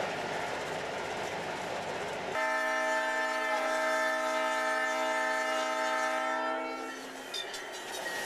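Cab rumble of an MP15DC diesel locomotive under way. About two seconds in, its air horn sounds one long blast of several steady notes together, lasting about four and a half seconds before the notes drop away.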